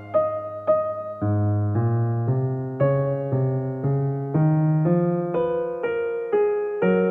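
Background music: electric piano playing a slow sequence of sustained chords, a new chord struck about every half second.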